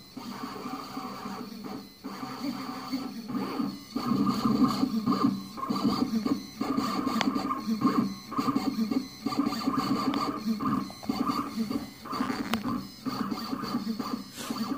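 Shapeoko 3 CNC machine's stepper motors whining as the gantry moves a marker along a drawing path. The tones shift and briefly drop out as each move ends and the next begins. The marker also rubs on the paper.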